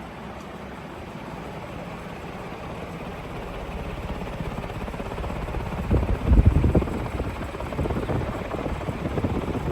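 HRS Strato industrial ceiling fan running on high, its aluminum blades giving a steady rushing whoosh. The sound grows louder as the microphone nears the fan, and from about six seconds in the fan's wind buffets the microphone in heavy low gusts.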